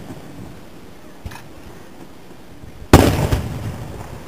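Aerial firework shell going off with one loud boom about three seconds in, its sound trailing off over about a second with a few smaller pops. A faint thud comes about a second in.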